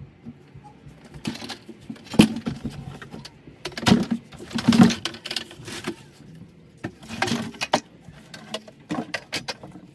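Dry soil being scraped and scooped by hand in a cramped crawl space, in irregular bursts of scraping and crunching with sharp clicks of grit and stones.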